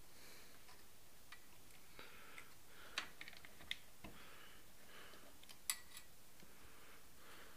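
Quiet handling noise: a few sharp clicks, the loudest near the middle, and light rustles over a faint steady hiss, with no engine running.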